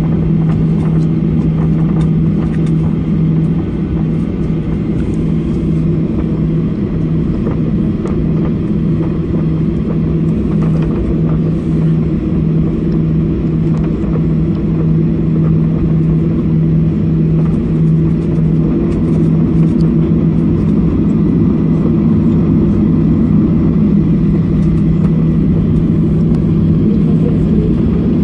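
Jet engines of a Boeing 737 airliner heard from inside the cabin: a steady drone with a strong low hum running through it.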